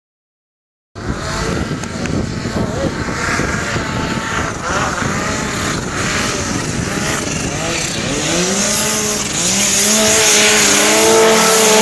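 Snowmobile engine revving hard under load as it climbs a steep snow chute, starting abruptly about a second in. Its pitch climbs and holds high over the last few seconds.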